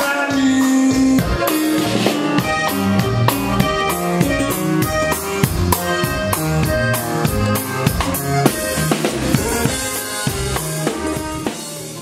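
Tejano band music: quick accordion runs over drum kit and bass, dropping away near the end.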